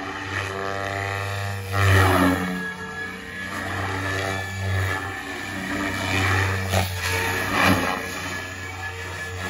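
SAB Goblin Kraken electric RC helicopter with a three-blade main rotor flying and manoeuvring. The rotor's low buzz and the drivetrain whine slide up and down in pitch as it swoops past, swelling loudest about two seconds in and again near the end.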